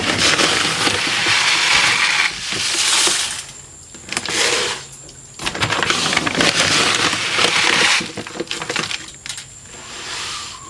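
Dry layer crumble chicken feed being scooped and poured into a container over oyster shell, a rattling rush of grains coming in several pours with short pauses between.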